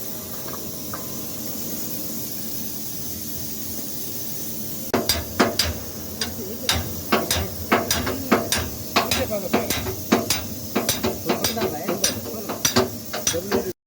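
Hammer blows on metal: a steady hiss for about five seconds, then rapid, irregular knocks with a short metallic ring, roughly two to three a second, until the sound cuts off near the end.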